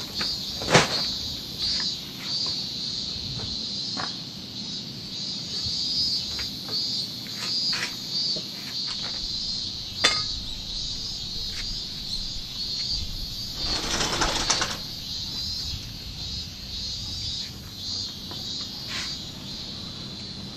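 Steady high-pitched insect chorus with scattered light clicks and taps. A louder burst of noise lasts about a second, fourteen seconds in.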